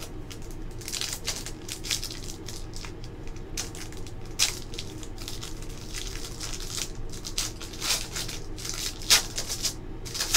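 Foil wrapper of a trading-card pack crinkling and tearing as it is ripped open by hand: an irregular run of sharp crackles and rustles, with a louder crackle about nine seconds in.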